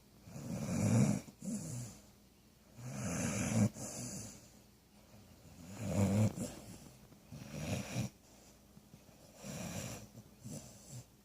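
Snoring: a rasping snore about every two seconds, in a steady sleeping rhythm.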